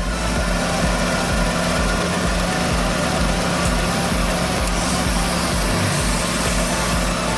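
Daewoo Matiz engine idling steadily, a constant low hum with an even throb.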